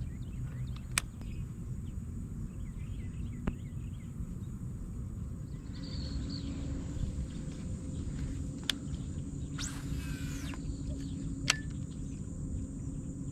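Outdoor ambience over the water: a steady low rumble, a few sharp clicks, and a bird calling briefly near the middle.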